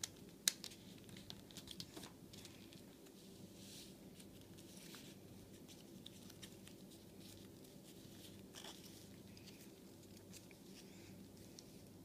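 Faint rustling and crinkling of gold-and-white origami paper being turned over, folded and creased by hand, with a sharp click about half a second in and scattered soft crinkles after it.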